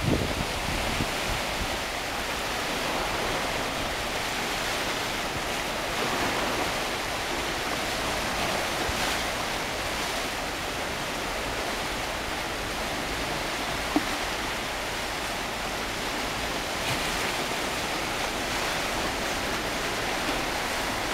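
Small sea waves breaking and washing over a rocky, pebbly shore: a steady surf hiss, with one brief click about two-thirds of the way through.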